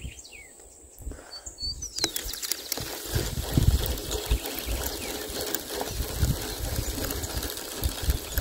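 Wind buffeting the phone's microphone in uneven gusts, starting about two seconds in, with a couple of short bird chirps near the start.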